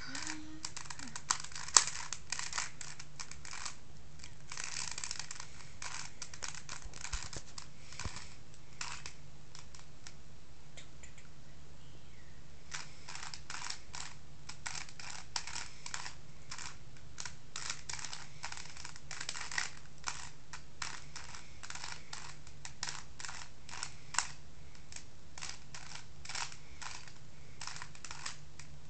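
Plastic Rubik's cube being turned quickly, its layers clicking in rapid runs, with a pause of about three seconds partway through.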